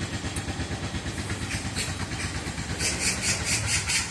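Steady low rumble of an engine running, from construction machinery working nearby. About three seconds in, a quick run of scratchy strokes, roughly five a second, comes over it.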